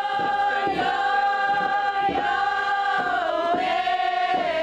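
Voices singing a slow chant in long held notes, the pitch dropping slightly about three seconds in.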